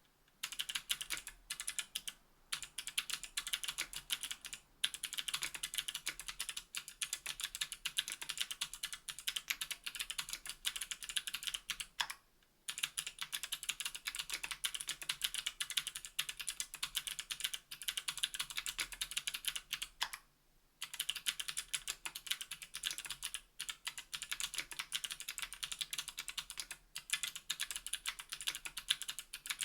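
Continuous typing on a KBDfans Tofu 60% aluminium keyboard with NovelKeys Sherbet clickbar (clicky) switches, an aluminium plate and GMK keycaps: a fast, dense run of sharp, high clicks. It is broken by a few brief pauses, the clearest about 12 and 20 seconds in.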